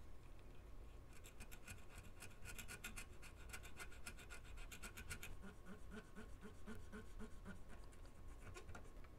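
A pointed tool scraping old capacitor glue off a circuit board, in quick light strokes about six a second, turning near the middle to slower, duller strokes about four a second.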